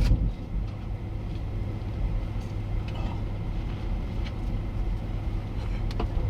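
Steady low rumble of a vehicle heard from inside its cabin, with a few faint ticks near the end.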